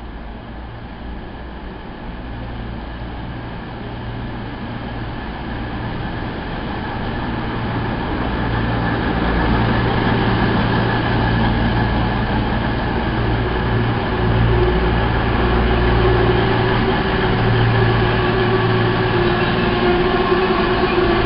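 CrossCountry Voyager diesel multiple unit running into the platform, its underfloor diesel engines giving a low drone that grows louder over the first ten seconds as it draws near, then holds steady. A steady whine joins in during the second half.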